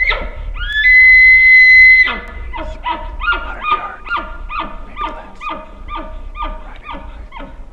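Elk bugle: a sharp rising glide into a loud, high held whistle of about a second, then a long run of short falling chuckles, about three a second.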